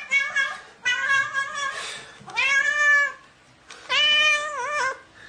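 A cat meowing repeatedly: a few short meows, then two longer drawn-out ones, the last wavering down in pitch at its end.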